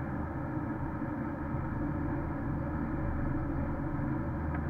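Steady engine and tyre noise inside a Porsche Cayenne S cruising on a snow-covered highway, heard through a dashcam's microphone.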